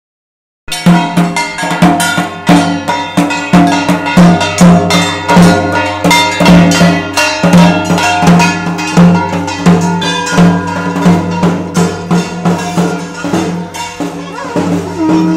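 Fast, steady traditional percussion with a ringing metallic clang on the beats, the drum-and-gong playing typical of a Durga Puja procession. It starts abruptly after a brief silence.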